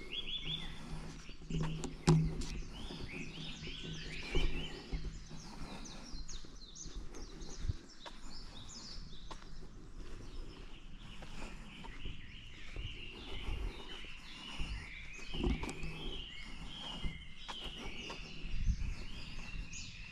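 Small birds chirping and twittering continuously in short, high calls, over a low outdoor rumble. There are a few low thumps and knocks, the loudest about two and four and a half seconds in.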